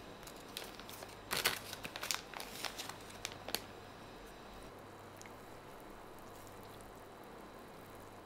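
Plastic food packet crinkling as it is handled, a flurry of crackles lasting about three seconds, loudest about a second and a half in, then only a faint steady hum.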